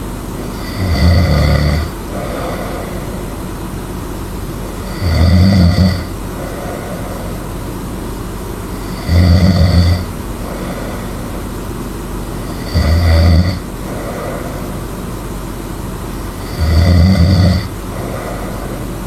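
A person snoring loudly and rhythmically: five heavy, low snores about four seconds apart, each lasting about a second, with a softer breath between each over a steady background hiss.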